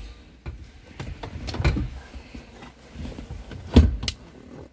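Scattered clicks and knocks of parts and tools being handled while a car's steering column is refitted under the dashboard, with one sharp knock followed quickly by a second near the end.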